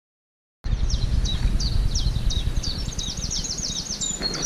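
Silent for about half a second, then a small songbird singing: short high notes repeated in quick succession, running into a faster trill, over a steady low rumble.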